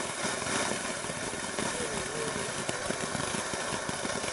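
500-gram firework fountain spraying: a steady rushing hiss of burning composition, peppered throughout with many small crackles.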